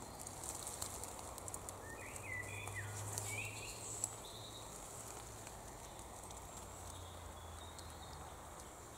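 Light rustling and clicking of leafy bittersweet nightshade vines being handled, as a hand reaches in and lifts a flowering stem, with one sharper click about four seconds in.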